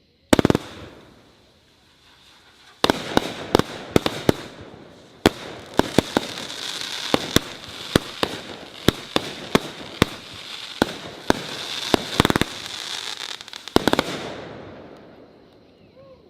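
Miracle Fireworks 'The Gangster' 35-shot firework cake firing: one shot about a quarter second in, then from about three seconds a rapid run of sharp shots and bursts over a steady hiss. The shots stop around fourteen seconds in and the sound fades.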